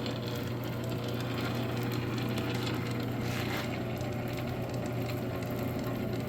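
South Bend Model A 9-inch bench lathe running steadily under its single-phase 115-volt motor: an even hum with the whir of the gear train.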